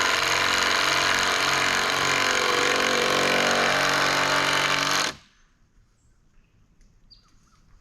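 Cordless impact driver hammering a large screw into a timber, running steadily for about five seconds and then stopping abruptly.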